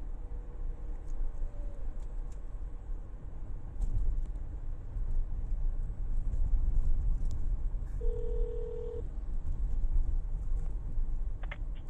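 Phone line on hold during a call transfer: a steady low rumble on the line, a faint tone for the first two seconds, and a single one-second beep about eight seconds in.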